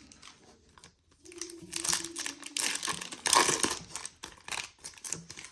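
Foil trading-card pack wrapper crinkling and cards being handled, in a run of rustling bursts that starts about a second in and is loudest near the middle.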